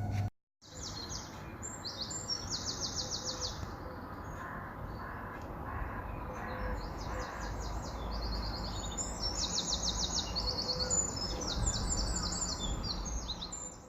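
Several small birds chirping and singing together in fast, high trills that overlap throughout, over a steady low background rumble.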